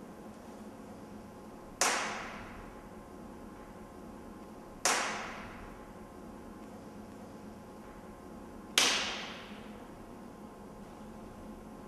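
Three sharp cracks, roughly three to four seconds apart, each fading away over about a second. The last crack is the loudest.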